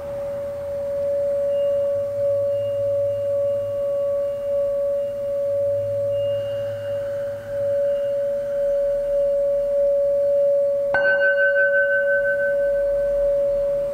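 Singing bowl ringing a steady, slightly wavering tone. About eleven seconds in a bowl is struck with the mallet, adding a brighter, higher ring that pulses as it sounds on.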